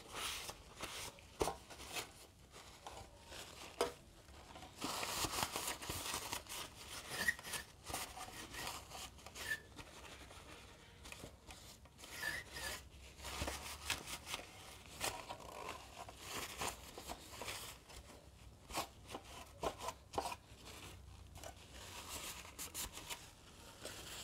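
Paper towel rubbing and crinkling over a plastic sunglass holder as the part is wiped down with alcohol before painting, in irregular scratchy strokes with scattered light clicks as the part is turned in the hands.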